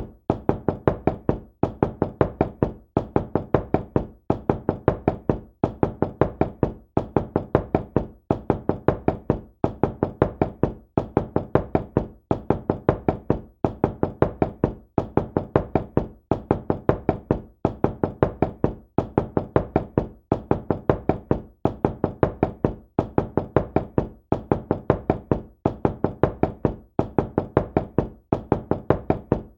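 Knocking on a door: quick bursts of several knocks each, repeating steadily with short pauses between the bursts.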